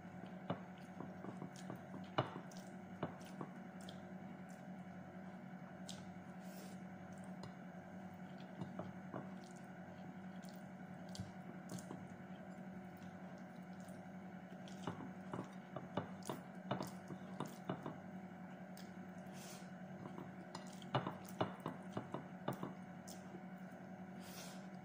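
Close-up eating sounds: wet chewing and lip smacks as food is eaten by hand, in scattered clusters of short clicks, over a steady low hum.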